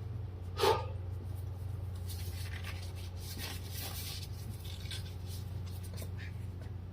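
Faint rustling and rubbing of hands handling things, over a steady low hum, with one brief louder sound about a second in.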